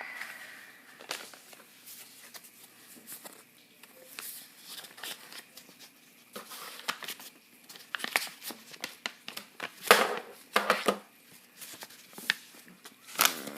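Paper mail packaging crinkling and tearing as it is opened by hand, in irregular bursts of rustles and clicks, loudest about ten seconds in and again near the end.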